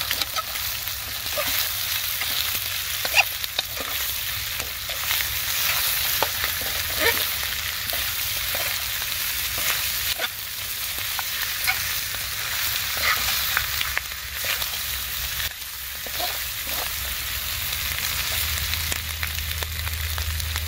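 Pieces of bear-foot meat sizzling in a hot wok while a metal spatula stirs and turns them, with frequent clicks and scrapes of the spatula against the pan.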